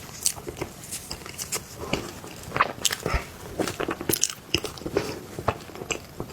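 A person biting and chewing soft cake close to the microphone: an irregular string of sharp mouth clicks and smacks.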